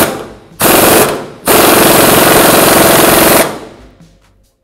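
Pneumatic impact wrench hammering on a bearing puller's forcing screw, pressing the hub out of a wheel bearing. It goes in two short bursts, then one long run of about two seconds that dies away near the end.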